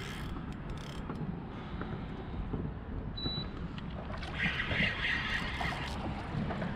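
Steady wind and water noise around a fishing kayak while a hooked fish is fought on a bent rod. There is a brief rasping burst from the reel being worked about four and a half seconds in, and one short high beep about three seconds in.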